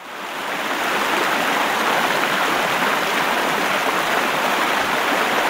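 A steady rushing noise like running water, fading in over the first second and then holding even.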